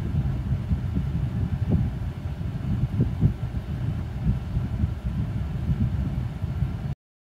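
Domestic cat purring: a loud, low, fluttering rumble.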